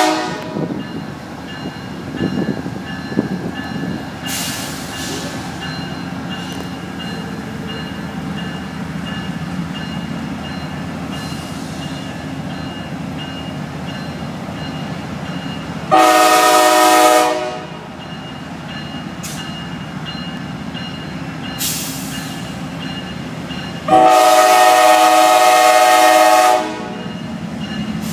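Train rumbling past with steady rail and engine noise, its locomotive air horn sounding a chord twice: a short blast about two-thirds of the way through and a longer one near the end.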